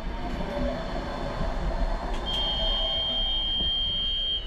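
Škoda Anitra 03T6 tram rumbling low. About two seconds in, a steady high electronic warning beep starts and holds for about two seconds, then steps a little lower in pitch near the end: the door-closing warning, with the sliding doors moving right after.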